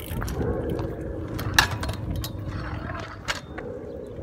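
Stunt scooter wheels rolling on rough tarmac, with two sharp clacks, the louder about one and a half seconds in and a smaller one near the end.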